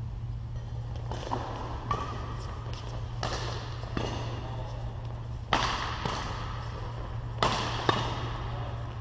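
Badminton rally in a reverberant hall: about five sharp racket strikes on the shuttlecock, growing louder in the second half, with brief shoe squeaks on the court. A steady low hum runs underneath.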